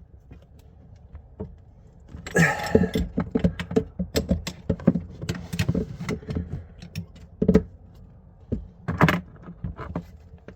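Adjustable spanner clicking and knocking against a compression fitting nut as it is tightened onto copper pipe: a run of irregular metallic clicks and knocks starting about two seconds in, with a louder scrape at the start.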